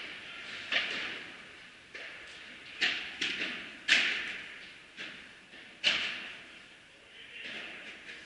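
Padel rally: a ball struck back and forth with solid padel rackets and bouncing on court, making about seven sharp hits roughly a second apart, each echoing on in the large hall.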